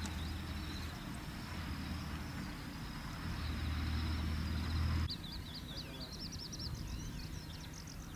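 Open-air field ambience: a steady low rumble for about five seconds, then after a sudden change, quieter background with rapid, repeated high-pitched chirps.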